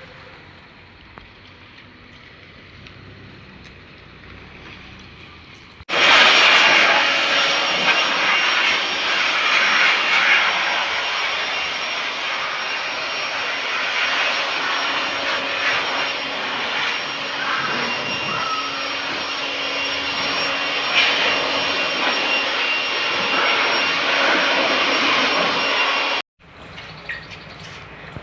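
High-pressure car washing machine spraying a water jet: a loud, steady hiss that starts suddenly about six seconds in and cuts off abruptly near the end.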